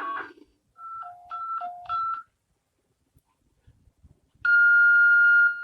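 Synthesized emergency-alert tones. A quick high-low two-tone pattern of five short notes is followed by a pause. Then a loud steady electronic alert tone starts about four and a half seconds in and drops in level just before the end.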